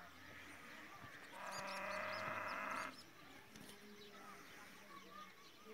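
Small birds chirping, and about a second in a loud call held on one pitch for about a second and a half.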